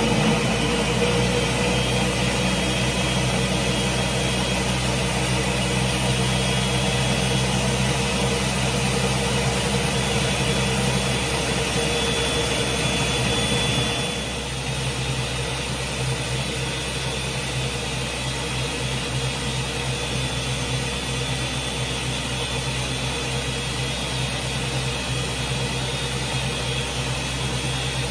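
Countertop blender motor running steadily as it blends a thick breadfruit drink mixture. About halfway through it gets a little quieter and runs on.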